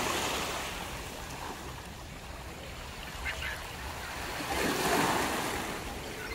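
Wind and waves at the water's edge: a steady rushing noise with low rumble that swells about five seconds in.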